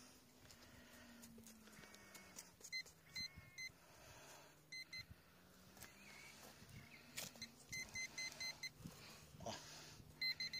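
Metal detector beeping in short runs of quick, same-pitched pulses, several times over, as it signals a shallow metal target in the hole. Underneath are faint scrapes and knocks of a hand digger working dry, clumpy soil.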